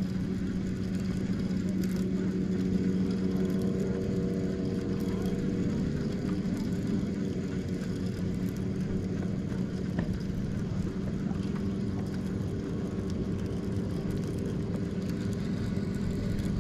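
Boat motor humming steadily, one even low note with overtones, over wind and water noise.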